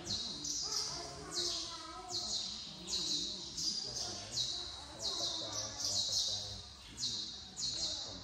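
Buddhist monks chanting in low voices, with short high-pitched chirps repeating every half second to a second over the chant.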